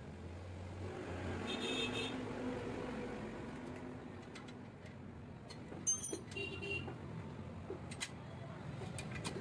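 A motor vehicle passing, its sound swelling to a peak about two seconds in and then fading. A few sharp metal clicks and clinks follow from the shock absorber and the spring-compressor jig being handled.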